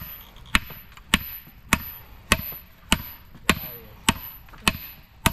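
Hand hammer forging hot iron: steady, evenly paced blows, just under two a second, each with a short high metallic ring. The iron is still hot enough to work.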